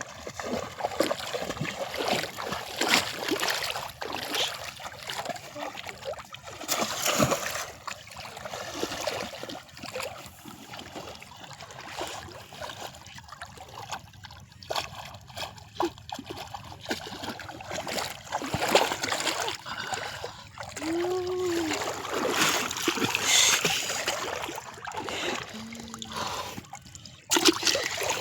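Shallow canal water splashing and sloshing again and again as people wade through it, plunging bamboo polo fish traps into the water.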